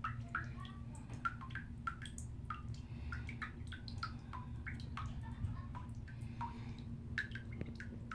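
Small irregular plinks and pops of bubbles in bathwater as a bath bomb fizzes out, several a second, over a steady low hum.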